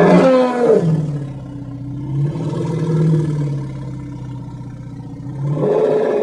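An elephant's call: a loud cry that falls in pitch within the first second into a long, low rumble, which climbs in pitch again near the end.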